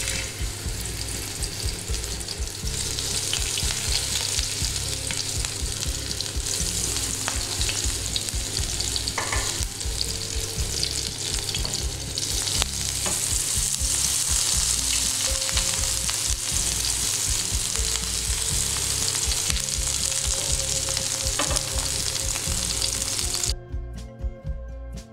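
Marinated prawn tikka skewers with capsicum and onion sizzling steadily in hot oil in a frying pan. The sizzle cuts off suddenly near the end, leaving only background music.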